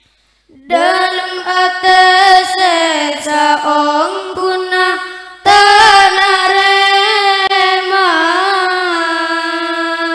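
A boy's solo voice singing long, ornamented held notes with no accompaniment, in two phrases: the first starts about half a second in, the second about five and a half seconds in and is held to the end.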